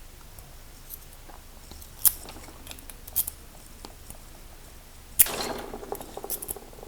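Small metallic clicks from a handled padlock, an American Lock 1106, then a louder burst of clicking and rattling scrape about five seconds in, as the jammed lock is worked.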